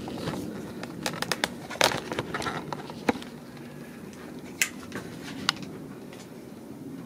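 Scattered light clicks and knocks, with a quick run of them in the first two and a half seconds and a few single ones later, over a low steady background.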